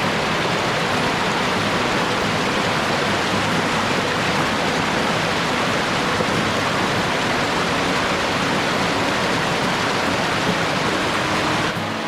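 Rushing water: a steady, even roar that starts abruptly and drops off just before the end.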